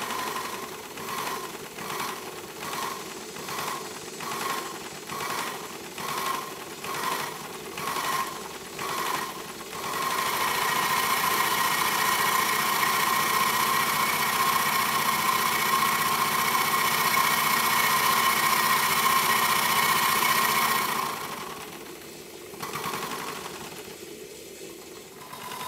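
Model traction engine's steam engine running on live steam at 50 psi: it starts in slow, even beats about one and a half a second, speeds up to a fast steady run from about ten seconds in, and eases off a little after twenty seconds.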